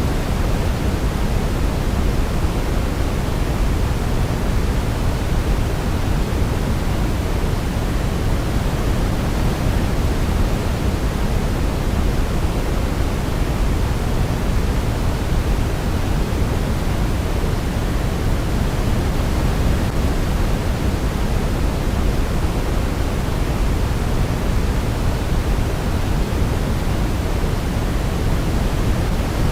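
Steady sleep-aid noise, an unbroken hiss weighted toward the low end like pink noise, with no change or break. No melody stands out above it.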